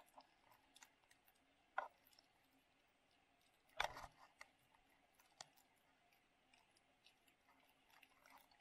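Near silence with the microphone underwater, broken by a few faint, short clicks. The loudest comes about four seconds in, with a weaker one just before two seconds.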